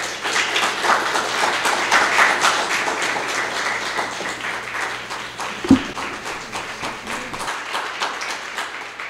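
Audience applause from a small room full of people, starting abruptly and slowly thinning and fading away near the end, with a single brief thump just after the middle.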